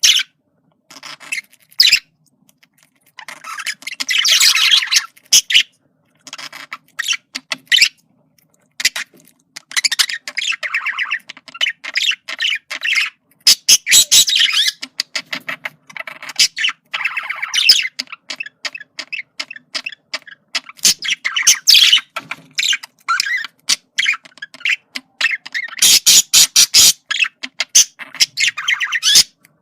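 Male budgerigar chattering in rapid bursts of short notes and clicks, broken by pauses of a second or two.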